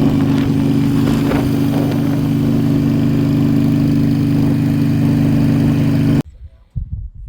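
Motorcycle engine running at a steady, unchanging speed, cutting off abruptly about six seconds in, followed by a few faint knocks.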